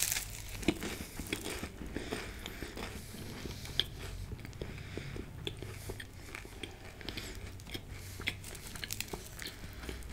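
Chewing a mouthful of flaky puff-pastry paneer patty close to the microphone, with many small crisp crackles of the pastry layers.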